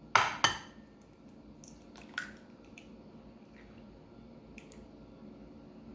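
An egg cracked on the rim of a bowl with two sharp knocks, then faint small clicks and drips while the yolk is separated from the white.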